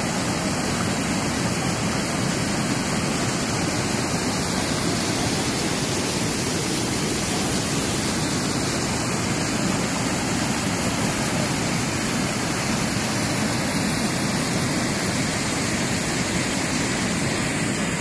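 Floodwater pouring over a reservoir dam's concrete spillway as it overflows: a steady, unbroken rush of falling and churning water.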